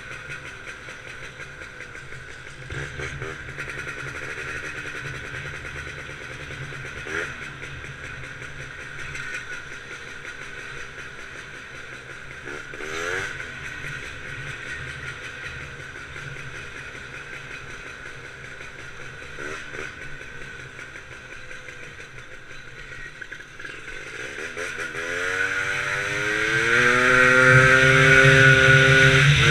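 Gilera Runner scooter's 172 cc two-stroke engine running at low revs with a few short throttle blips. About four-fifths of the way through it accelerates hard, the pitch rising and the sound getting much louder.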